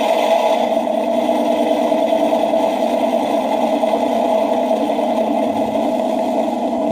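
An RC Panther G tank's TK22 sound board playing its simulated engine idle through the model's small speaker, a steady sound with nothing below its thin midrange. The idle sound has an unwanted hum, which the owner takes for a fault in the board.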